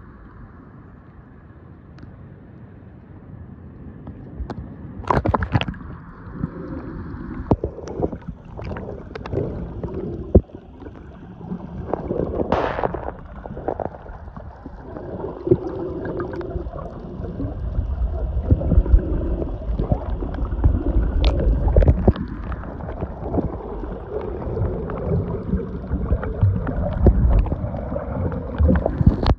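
Muffled sea-water sloshing and gurgling around a snorkeler's camera as it moves at and below the surface, with scattered clicks and knocks and a short hissing burst near the middle. The low rumble of water movement grows louder in the second half.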